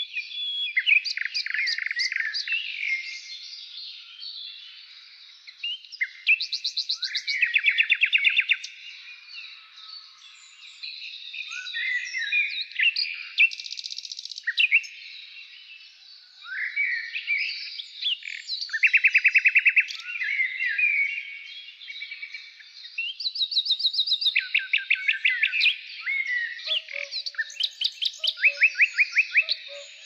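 Several songbirds singing in a forest: chirps and fast trills of rapid repeated notes, one phrase after another with short pauses between. A lower call joins near the end.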